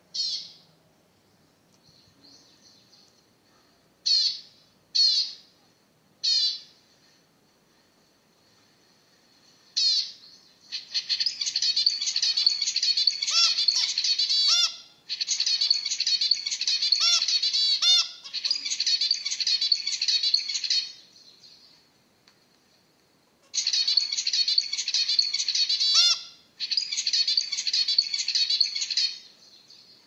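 Zebra finches calling and singing: a handful of short single calls in the first ten seconds, then a male's buzzy, chattering song in long bouts of a few seconds each, separated by short pauses.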